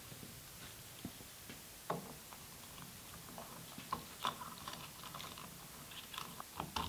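Scattered light clicks and taps, small hard knocks coming a few at a time, from hands working at the fuel filler opening of a C3 Corvette. There is a cluster about four seconds in and another near the end.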